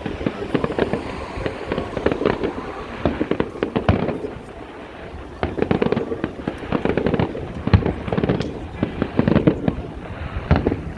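Fireworks going off: a rapid, irregular string of bangs and crackles with a short lull about four seconds in. The sharpest bang comes near eight seconds.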